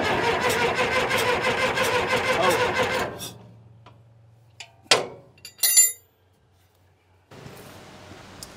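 Caterpillar D4D dozer's diesel engine spun over briefly on the starter for about three seconds to see whether it is pushing air, a dense rhythmic mechanical whirring. Two short sharp clanks follow a couple of seconds later.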